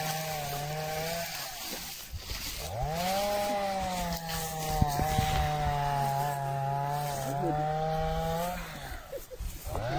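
Chainsaw engine running: it eases off a couple of seconds in, revs up about three seconds in and holds a steady high pitch for several seconds, then drops back near the end before revving again.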